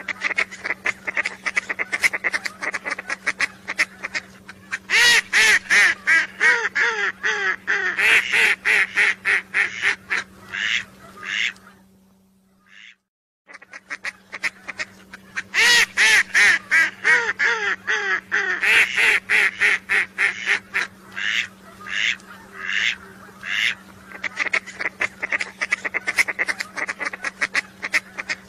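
Recording of whistling duck calls: dense runs of short, high whistled calls with lower notes among them, over a steady low hum. The recording breaks off for about a second a little before halfway, then the same run of calls starts over.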